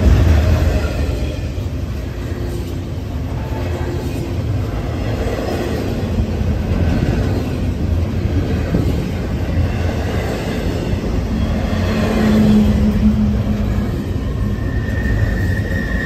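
Norfolk Southern intermodal freight train, double-stack container cars rolling past close by: a steady rumble of wheels on rail. A short low whine comes about twelve seconds in, and a higher wheel squeal starts near the end.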